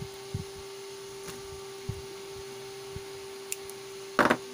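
A steady electrical hum, with faint soft knocks from hands handling a thin headphone wire and one short louder sound near the end.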